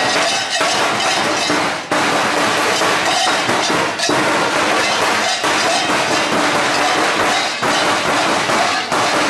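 Large cowbells worn on the belts of Perchten costumes, many clanging together at once in a dense, unbroken jangle as the wearers move about.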